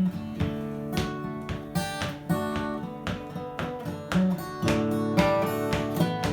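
Acoustic guitar strummed and picked in an instrumental passage of a song, with no singing.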